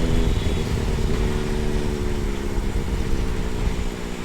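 Benelli superbike engine running at a steady speed while riding along, over a low rumble.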